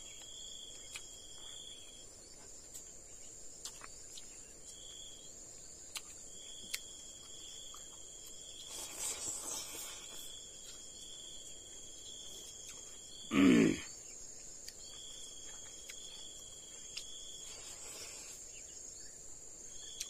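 Insects trilling: one high steady tone that never stops, with a lower chirping trill that switches on and off in stretches of one to several seconds. About two-thirds of the way through, a person makes one short, loud voice sound, and a soft rustle comes a few seconds before it.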